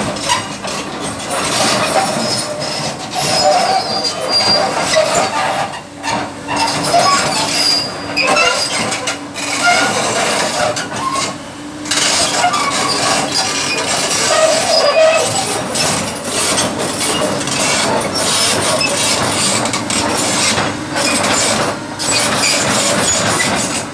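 Komatsu PC200 crawler excavator's steel tracks running over a steel ramp and truck deck with irregular squeaks and metallic scraping as the machine climbs aboard, over the steady hum of its diesel engine.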